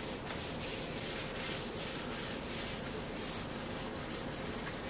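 Paper towel wiped back and forth across a cast iron surface plate, a soft rubbing hiss in repeated strokes, cleaning a heavy coat of Boeshield rust preventive off the plate.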